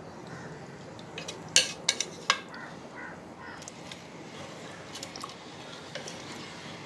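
Wooden spatula stirring rice and water in a metal pressure cooker pot, with three sharp knocks of the utensils against the pot about a second and a half to two and a half seconds in, and a few fainter ticks later.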